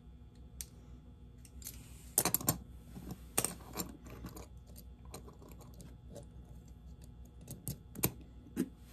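Irregular light clicks and taps of small metal model-locomotive parts being handled and worked apart by hand. The clicks bunch together about two seconds in and again near the end.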